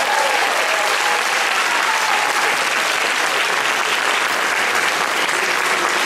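Audience applauding steadily after a dance performance.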